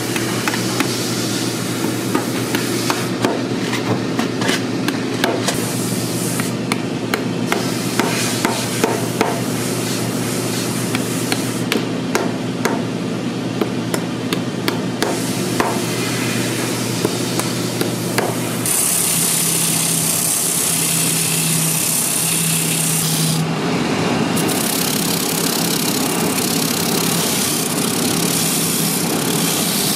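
A hammer tapping on a stacked leather boot heel, irregular sharp taps over a steady machine hum. About nineteen seconds in, a spinning wheel starts grinding the leather heel edge: a louder, steady, hissing grind.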